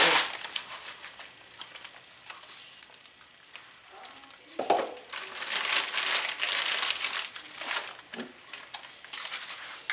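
Crinkling and rustling of a brown sugar bag being handled as the sugar is poured into the pot and the bag is put down, with a few light clicks.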